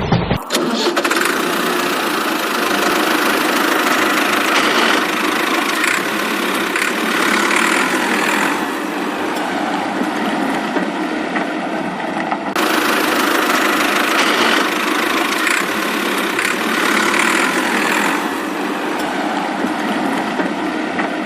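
An engine running steadily with a rattling knock, its sound cut off and restarted once about halfway through.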